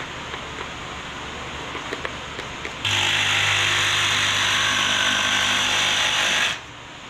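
Cordless jigsaw cutting through plywood, starting about three seconds in, running steadily for about three and a half seconds, then stopping abruptly. Before it, a few light clicks over a steady background hiss.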